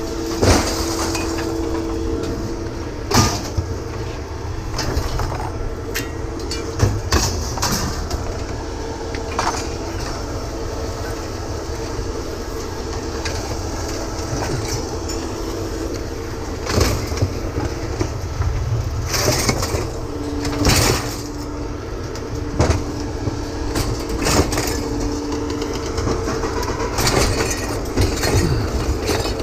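A vehicle in motion, heard from inside: a steady low rumble of road and engine noise with a constant hum, broken by scattered knocks and rattles every few seconds.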